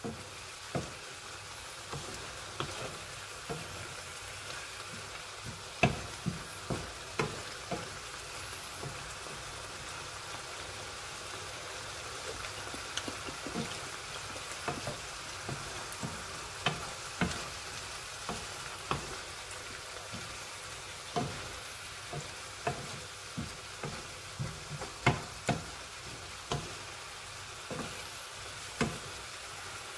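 Tofu cubes, bell peppers and onion sizzling in a frying pan as the added vinegar cooks off, with a steady hiss. A wooden spatula stirs them, giving irregular sharp taps and scrapes against the pan.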